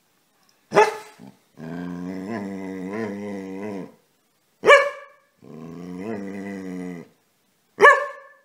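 A dog gives three short, sharp barks, with a long, pitched growling grumble of about two seconds between each pair. It is an attention-seeking dog wanting to be petted.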